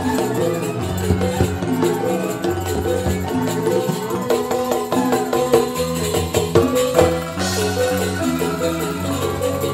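Balinese joged bumbung gamelan music: bamboo xylophones playing fast, interlocking repeated patterns over percussion.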